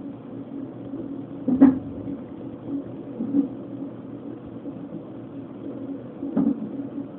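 Fetal heart monitor's Doppler sound of an unborn baby at 32 weeks: a steady heartbeat sound broken by sharp thumps from the baby hiccuping, one about a second and a half in, a softer one midway and another near the end.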